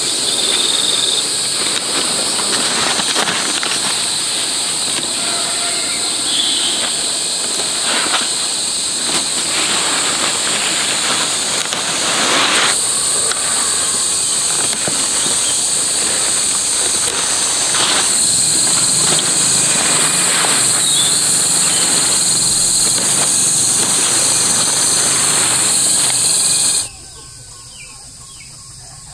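Steady chorus of insects trilling at a high pitch, with scattered rustles and knocks over it. About 27 s in the sound drops abruptly to a much quieter background.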